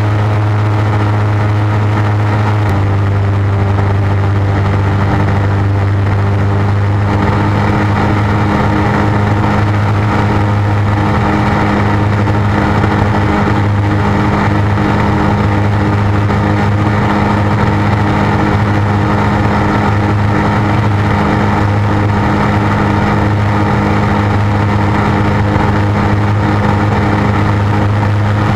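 A light aircraft's propeller engine, running steadily with a loud, even drone, heard from inside the cockpit. Its note shifts slightly about three seconds in, and more rushing noise joins from about seven seconds in.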